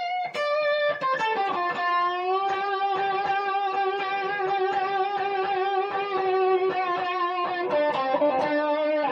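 Electric guitar playing a blues lick in D: a few quick notes, then one long bent note held for about six seconds with heavy vibrato, then a few descending notes near the end.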